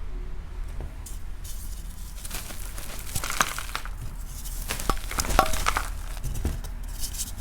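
Soft blocks of gym chalk crumbling and crackling as they are squeezed and broken by hand: a dense run of small crisp cracks that starts about two seconds in, peaks near the middle and thins out toward the end, over a steady low hum.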